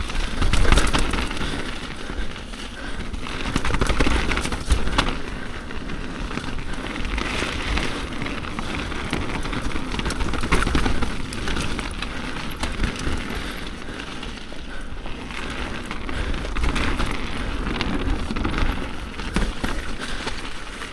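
Mountain bike riding fast down a wet trail: the tyres crackle and hiss over wet dirt, and the bike knocks and rattles over bumps, with a steady low rumble underneath.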